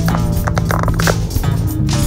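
Background music with plucked guitar and bass over a steady beat.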